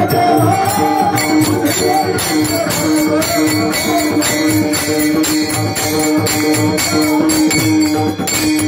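Devotional instrumental music: pakhawaj drum strokes with quick, steady jingling metal percussion over a sustained drone note.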